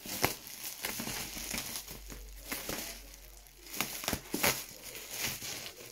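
Bubble wrap crinkling and crackling as it is handled and pulled off a parcel by hand, in irregular bursts with sharp clicks and a quieter stretch a little past the middle.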